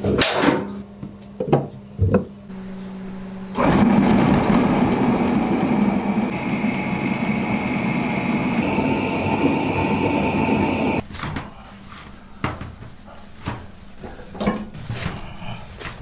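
Electric motor switched on about three and a half seconds in, driving a belt-driven rice-noodle machine with a loud, steady running noise. A higher whine joins partway through, and the noise cuts off suddenly about eleven seconds in. Metal clanks come before it and lighter knocks after it.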